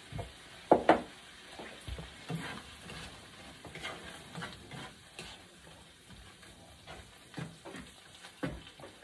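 A spoon stirring and scraping corned beef in a frying pan over a gas burner, the food sizzling quietly underneath. Two sharp knocks about a second in, then irregular scrapes of the spoon against the pan.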